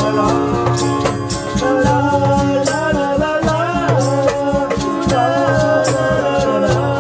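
Acoustic folk band playing between verses: an acoustic guitar with hand percussion, a shaker-like rattle, keeping a steady beat, and a wavering melody line over them.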